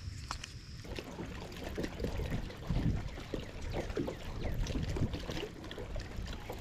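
Water lapping and slapping irregularly against a fishing boat's hull, over a steady low wind rumble.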